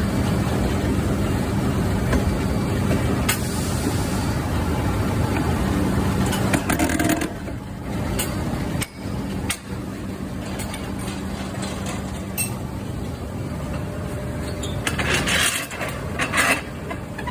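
Heavy machinery running with a steady, engine-like hum, broken by a few sharp knocks and a burst of harsher, hissing noise near the end.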